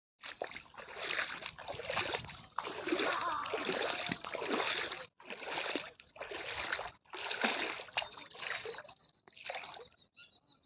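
Water splashing in a run of noisy bursts, one to two seconds each with short breaks between, thinning out near the end.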